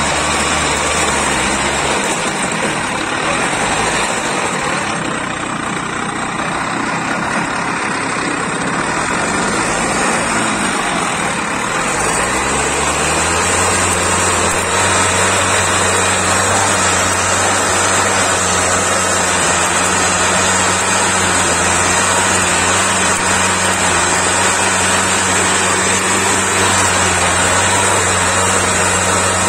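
Benassi walk-behind tiller's Minarelli engine running under load as its tines cultivate soil between bean rows. The engine note is uneven for roughly the first twelve seconds, then holds steady.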